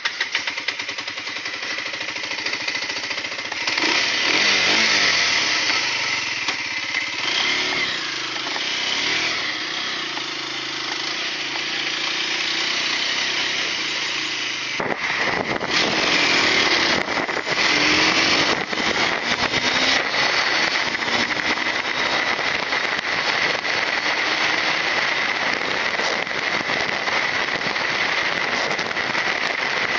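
Aprilia GPR125's 125cc engine under way, heard from the rider's seat over steady wind and road rush. Its pitch rises as it accelerates, about four seconds in and again after about fifteen seconds.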